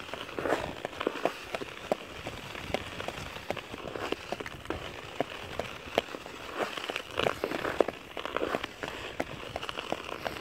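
Steps crunching and scraping on snow-dusted outdoor rink ice: an irregular run of short crackles, several a second.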